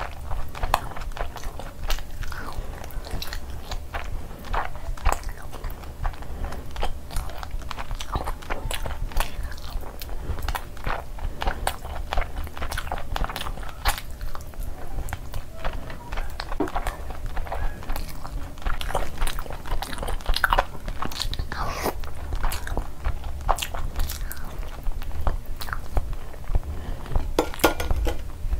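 Close-miked ASMR eating sounds of mutton curry and biryani eaten by hand: chewing, biting and wet mouth clicks, many small irregular ones, over a low steady hum.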